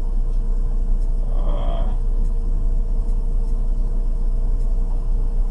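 Steady low rumble of a stopped car's idling engine, heard from inside the cabin through a dashcam's microphone. A short vocal sound, most likely from the driver, comes about a second and a half in.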